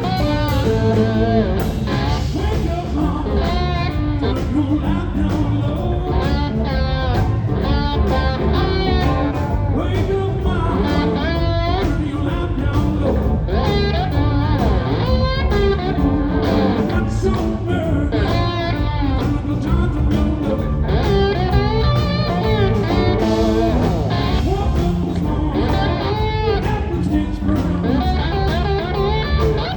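Live blues-rock band playing, with electric guitar carrying a lead line full of bent, wavering notes over bass and drums.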